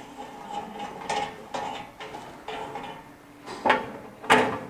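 Metal clinks and knocks as the sheet-metal change-gear cover of a mini lathe is unscrewed and lifted off its headstock: several light knocks, with the two loudest near the end.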